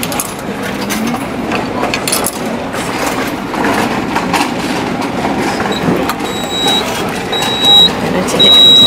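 Japanese meal-ticket vending machine beeping three times near the end, high steady beeps about half a second each, with a paper ticket waiting in the dispenser slot; the beeping signals that the ticket is ready to take. A steady hubbub of street chatter runs underneath, with a few sharp clicks early on as coins go in and the button is pressed.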